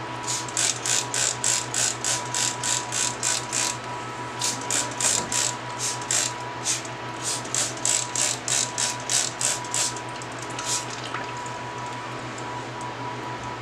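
Hand trigger spray bottle being pumped rapidly, each squeeze a short hiss of spray, about three a second. The spraying breaks briefly about four seconds in, runs on, and ends with one last squirt a little after ten seconds.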